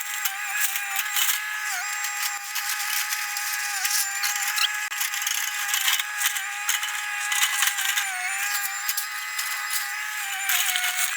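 Sped-up sound of an excavator demolishing a house: the engine drone is raised to a high, wavering whine, over dense rattling and scraping of breaking debris.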